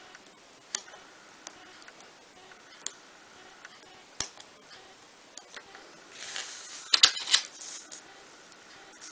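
Small pointed parchment-craft scissors snipping the parchment between pierced holes: single sharp clicks about every second. About six seconds in, a louder rustling stretch with a quick cluster of clicks as the parchment sheet is moved.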